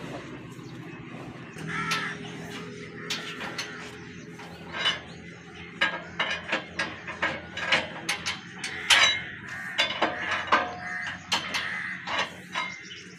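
Hand-operated chain pulley hoist being worked on a steel lifting frame: the chain clinks and the ratchet pawl clicks in quick, irregular strokes from a few seconds in, as it takes up the weight of a downed buffalo.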